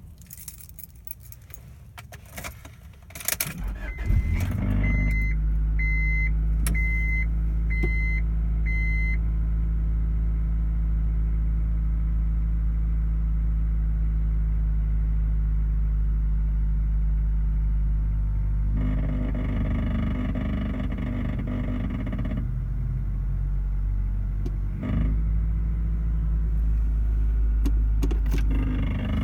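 Keys jangling, then a Honda Accord engine starting and running steadily, with a chime beeping five times just after it starts. About two-thirds of the way in, a harsher rattle joins the engine for about three seconds and comes back near the end: the metallic clanking and rattling that appears at a certain rpm.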